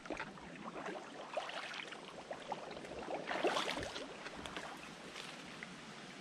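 Footsteps crunching through dry leaf litter and twigs, with a dense run of crackles; the crackling is thickest and loudest about three and a half seconds in.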